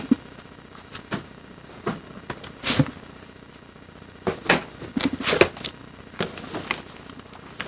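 Packages and cardboard being handled during unpacking: scattered short rustles, scrapes and knocks, busiest in the second half.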